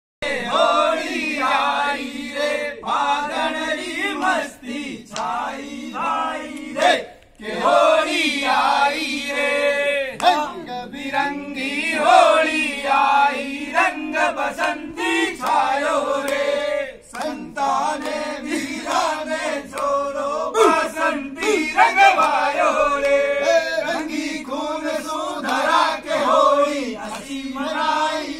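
Several men's voices singing together in a chant, continuous with only brief pauses between phrases.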